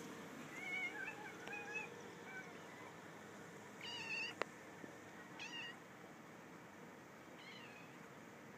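A domestic cat giving a series of short, high meows: a few in the first two seconds, then single calls about four, five and a half and seven and a half seconds in. A sharp click comes just after the call at four seconds.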